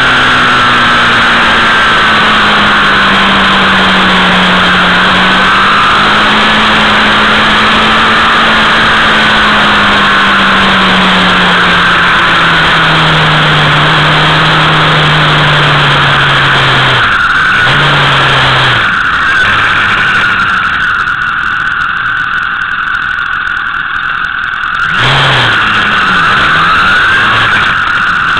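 Motorcycle engine running while riding, its pitch slowly falling as the bike slows, under heavy wind noise on the microphone. The engine note breaks off briefly twice about two-thirds of the way in, runs lower and quieter after that, and rises briefly in a short rev a few seconds before the end.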